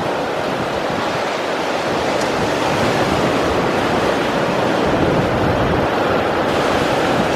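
Ocean waves breaking on the shore in a steady rush of surf.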